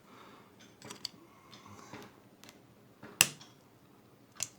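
A few sharp metal clicks and taps from a screwdriver worked against an old ratchet's head to pry it open. The loudest comes a little after three seconds in.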